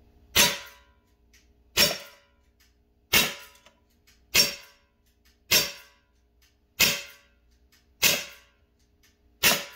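Umarex SA10 .177 CO2 pellet pistol firing eight shots in a steady string, about one every 1.3 seconds, each a short sharp report that dies away quickly.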